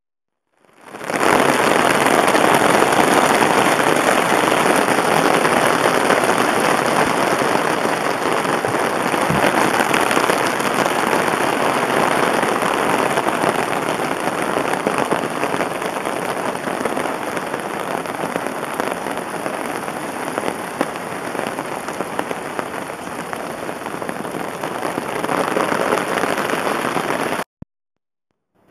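Loud, steady rush of falling water, fading in at the start and cutting off suddenly near the end.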